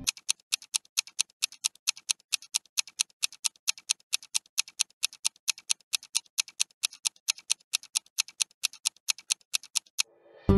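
Clock-style ticking sound effect for a ten-second guessing timer: sharp, evenly spaced ticks about four a second, running for ten seconds and then stopping.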